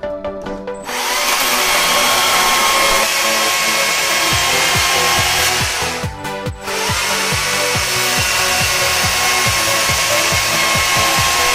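Stihl MSA 140 C-BQ battery chainsaw with a Picco Micro 3 chain running and cutting through small logs, a steady electric whine and hiss. It stops briefly about six seconds in and starts again. Background music with a steady beat plays underneath.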